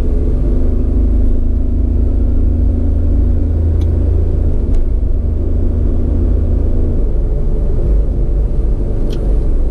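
A vehicle engine runs steadily over a low rumble of road and wind while driving, and the engine note drops about seven seconds in.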